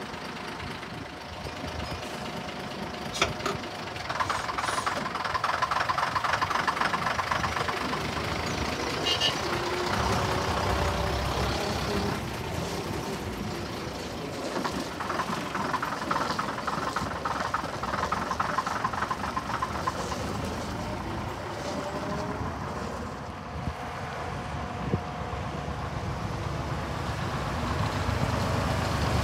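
Diesel engines of classic buses running and moving off past the listener, first a London Transport double-decker, then a Seddon coach, with a rumbling diesel clatter and the engine pitch sliding as they pull away.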